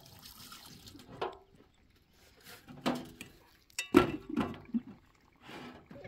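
Tap water running into a stainless-steel sink as a metal cup is rinsed, then a few clanks of metal cups and pots knocked against the steel sink, the loudest about four seconds in.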